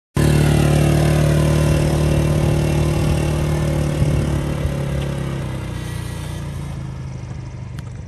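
Side-by-side utility vehicle's engine running at a steady pitch as it drives off, fading gradually, with a single knock about four seconds in.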